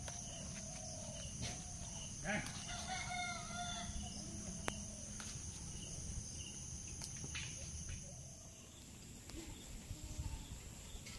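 A rooster crows once, a little over two seconds in, over a steady high-pitched insect buzz that drops away about eight seconds in. Scattered sharp clicks of leaf stems being snapped off by hand.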